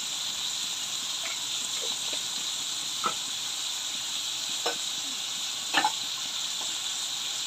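Prawns, onions and chana dal frying in hot oil in a karai: a steady sizzle with a few sharp pops now and then, the loudest about six seconds in.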